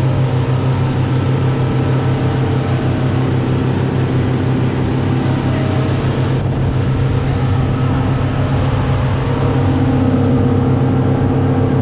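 Motorboat engine running steadily underway: a deep, even drone with a rushing hiss over it.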